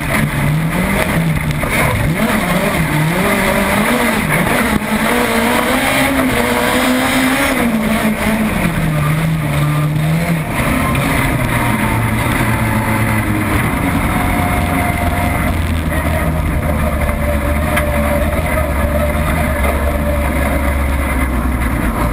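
Volkswagen Beetle autocross car's engine heard from inside the cabin, its pitch rising and falling again and again as the driver accelerates and lifts, then dropping to a low, steady drone from about eleven seconds in as the car slows.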